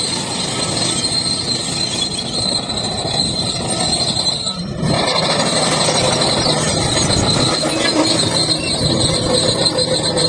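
Heavy construction machinery running loudly, with a steady high-pitched metallic squeal over the engine and track noise. The sound changes abruptly about halfway through and is a little louder afterwards.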